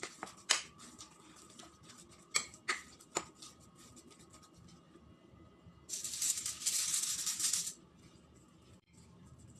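Gloved hands working a ground pork mixture in a glass bowl: a few faint sharp taps, then a rustling hiss lasting a little under two seconds about six seconds in.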